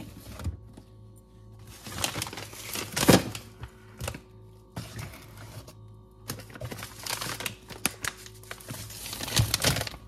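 Cardboard boxes of frozen food and a plastic packet being handled and slid onto a freezer shelf: a clatter of taps, scrapes and rustles about two seconds in, and again from about six seconds until near the end, over a steady low hum.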